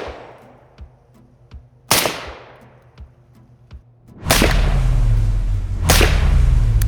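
Suppressed .308 shots from an M1A SOCOM 16 rifle fitted with a SilencerCo Velos suppressor: three sharp cracks, about two seconds in, four seconds in and six seconds in, each fading out quickly. A low steady rumble comes in with the second shot and continues.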